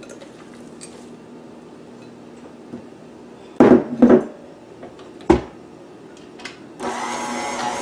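A few loud clunks of a KitchenAid Classic tilt-head stand mixer and its steel bowl being handled, then near the end the mixer's motor starts and runs steadily with the dough hook turning dough.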